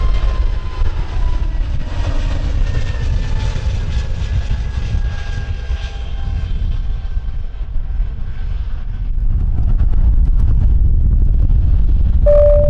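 Jet noise from a Frontier Airbus A320neo's CFM LEAP-1A engines as it climbs away after takeoff: a steady low rumble with an engine whine that falls slowly in pitch as the jet recedes. A short, clear steady tone begins right at the end.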